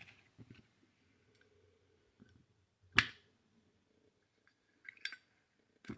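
Metal clicks of a Zippo lighter being handled: one sharp metallic clack about three seconds in, then a few fainter clicks near the end.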